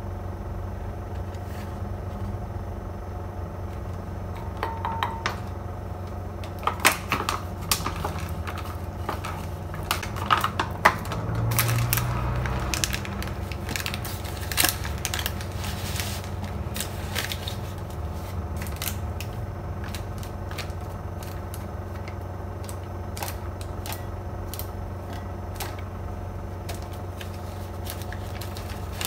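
Scattered light clicks and taps of a metal spoon against a glass mixing bowl, with ingredient packets and a cardboard box being handled, as dry ingredients are spooned in, over a steady low hum.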